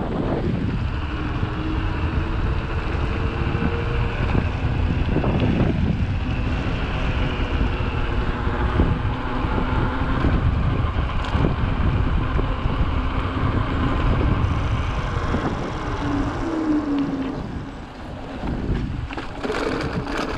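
Wind rushing over the microphone, with the rolling rumble of a 29er Haibike hardtail mountain bike on the move.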